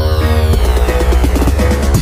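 Electronic background music: a heavy, sustained bass with a high synth tone sliding downward over it.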